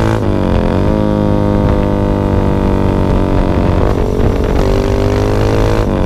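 Motorcycle engine and exhaust, recorded close to the muffler, running hard at speed. Its pitch dips briefly shortly after the start and again about four seconds in, then climbs back.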